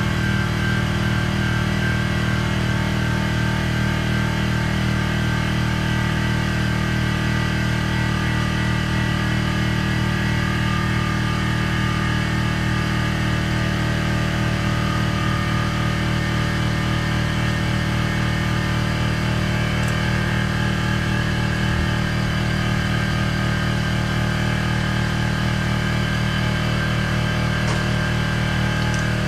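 Air compressor running steadily with a constant hum and a hiss of air.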